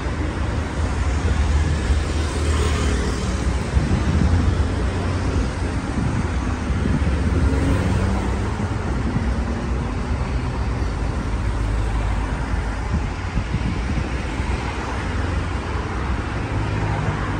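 Street traffic: a steady low rumble of passing cars and engines.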